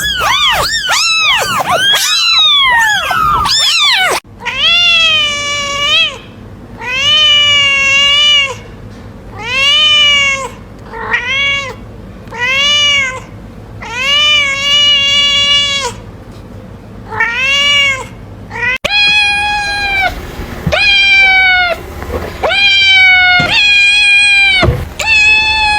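Domestic cats meowing over and over in three spliced recordings. First comes a quick run of short, high meows, then a regular series of drawn-out meows about one a second. After an abrupt cut near the end, a slightly higher-pitched cat meows in the same way.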